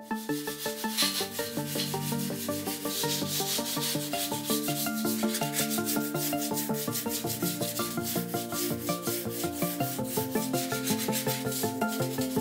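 Hand-sanding block rubbing back and forth over a van's body panels, a steady scratchy hiss, under background music with a steady beat.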